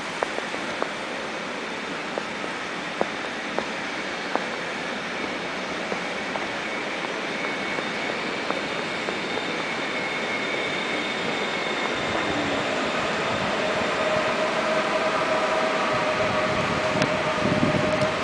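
Electric multiple-unit passenger train running slowly alongside the platform, its rumble growing steadily louder. In the last few seconds a motor whine slides down in pitch and then holds steady.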